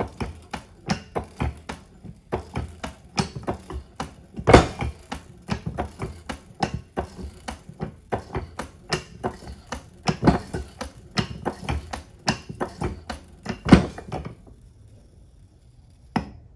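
Daytona 2-ton aluminum floor jack's handle pumped quickly with the release valve open: a fast, even run of mechanical clicks and knocks from the pump linkage, with a few louder knocks among them, as air is bled out of the hydraulic pump. The pumping stops about two seconds before the end, with one last click after.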